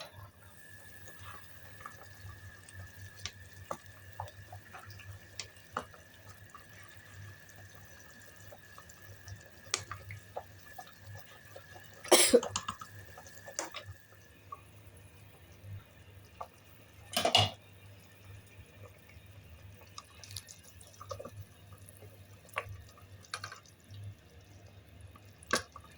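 Pot of herbal soup simmering on a turned-down flame: scattered small bubbling pops, with two louder pops, one about halfway through and another some five seconds later.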